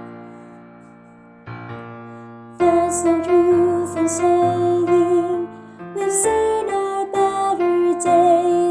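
Piano chords ringing and fading, then a soprano voice starts singing a melody with vibrato over the piano accompaniment about two and a half seconds in.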